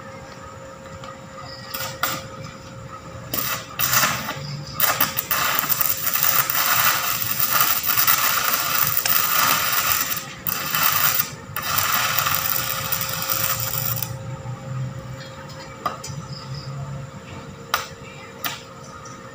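Stick welding on steel tubing: the electrode's arc crackles and sizzles for about ten seconds, with two short breaks, then a few sharp taps near the end.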